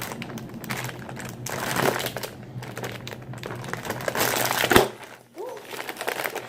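Crinkly plastic cookie bag rustling and crackling as it is handled and pulled at to get it open, with one loud sharp crack almost five seconds in.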